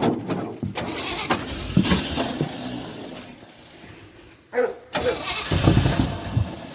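Square-body Chevy pickup's engine being cranked by its starter on a cold start after sitting nearly two months, turning over without catching yet; the owner says the starter needs replacing. The cranking comes in two spells, with a lull in the middle and a sharp burst about four and a half seconds in.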